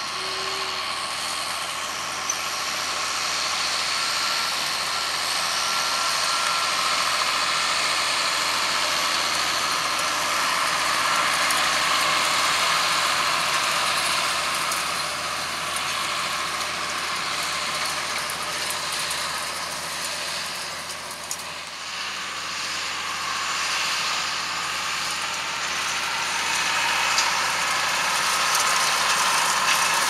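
John Deere 6830 tractor's six-cylinder diesel running steadily under load while pulling a Claas Liner 2600 twin-rotor hay rake with its rotors turning. The level swells and eases gently as the tractor works past.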